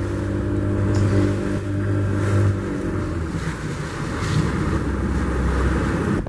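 Speed boat's engine running under way, a steady drone mixed with the rush of water and wind; the engine note shifts about two and a half seconds in.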